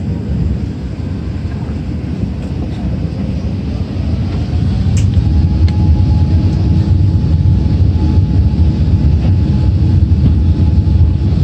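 Airbus A380 cabin noise: a steady low rumble, with the engines' whine rising in pitch about three seconds in and the whole sound growing louder, then holding at a steady pitch. This is the engines spooling up to takeoff thrust at the start of the takeoff roll.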